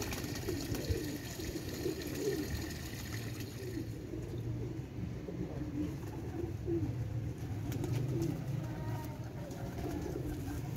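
Domestic pigeons cooing: low, wavering coos repeated over and over.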